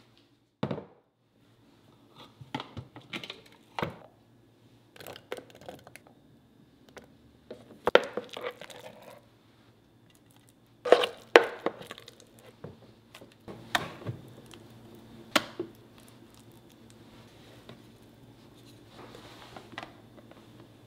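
A metal spoon clinks and scrapes against a glass loaf pan as thick mashed sweet pumpkin batter is scooped in. The result is a run of irregular knocks and clinks, the loudest a little past halfway, over a low steady hum.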